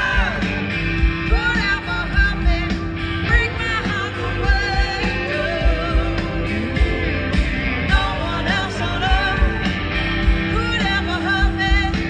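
A live band playing a country-rock song with a woman singing lead over guitars and a steady drum beat.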